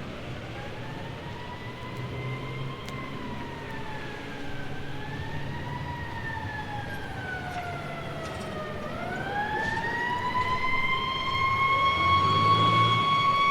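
Siren wailing, its pitch rising and falling slowly, then sweeping up about nine seconds in and holding a steady high note as it grows louder. A low engine rumble runs underneath.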